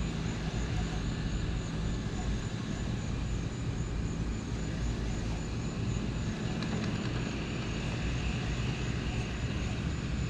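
A steady, low engine drone from a distant motor, holding an even level.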